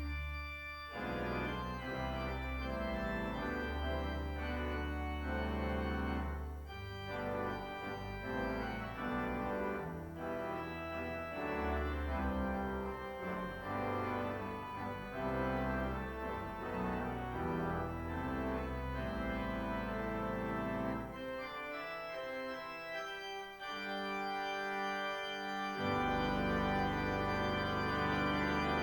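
Organ music: slow sustained chords over low bass notes, changing every second or two, with a long held chord near the end.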